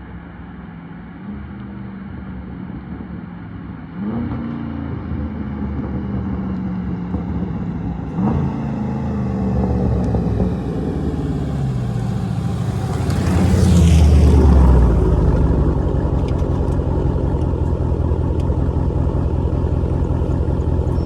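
Chrysler 392 HEMI 6.4-litre V8 on a stock tune accelerating toward the microphone, its pitch stepping up twice, passing loudest about two-thirds of the way through. It then settles into a rumble with crackles and pops from the exhaust near the end.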